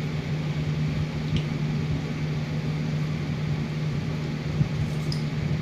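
A steady low electric hum with a soft, even hiss over it and a couple of faint ticks.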